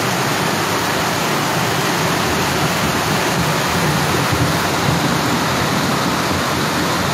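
Storm floodwater rushing down a narrow paved street in a torrent: a loud, steady rush of water.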